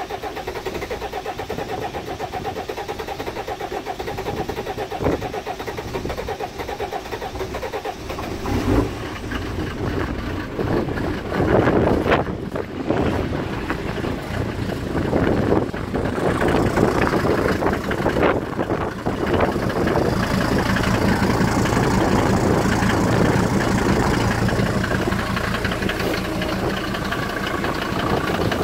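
Cold start of a SsangYong 2.9-litre turbodiesel, a Mercedes-Benz copy, long stood and with its fuel just hand-primed. It turns over evenly for several seconds, catches about eight seconds in and runs unevenly, then settles into a steady diesel idle.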